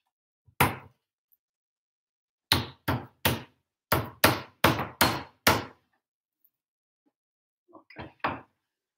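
A flat metal meat pounder strikes raw chicken breast slices on a wooden cutting board, flattening them. There is one blow, then after a pause a run of about eleven blows at three or four a second, and a few lighter knocks near the end.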